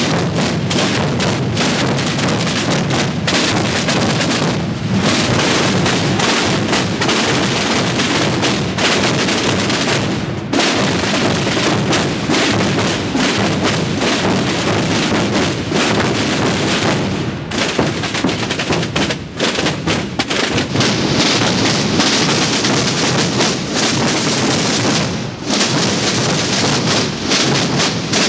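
Many rope-tensioned snare drums (tambores) and bass drums (bombos) of a Holy Week drum corps playing together in a dense, continuous clatter of beats, with a few brief dips.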